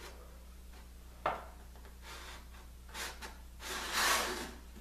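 Wood pieces being handled on a wooden jig: a sharp knock about a second in, a few light scuffs, then a longer scraping rub of wood on wood near the end, over a steady low hum.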